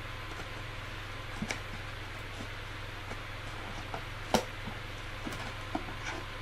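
Scissors and a taped cardboard box being handled and cut: scattered small clicks and knocks, with one sharper knock about four seconds in, over a steady low hum.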